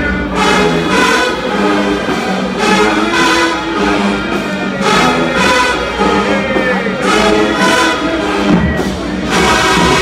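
HBCU show-style marching band playing loud, full brass chords in punchy phrases, with sousaphones underneath.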